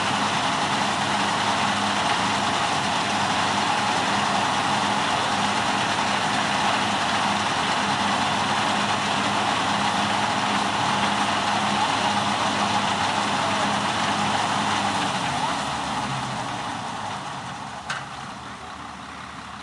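NS929 4x4 combine harvester's engine and machinery running steadily while its unloading auger discharges grain. The sound fades away over the last few seconds, with a single sharp click near the end.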